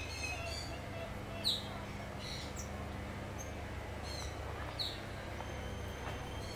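Birds chirping: short, high calls scattered a second or two apart, including quick falling chirps, the most prominent about a second and a half in, over a steady low rumble.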